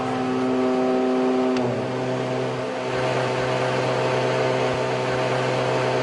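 Twin piston-engined aircraft droning steadily, heard from inside the cabin. About a second and a half in, the sound drops and shifts as one engine is shut down, leaving the other engine running with the first propeller stopped.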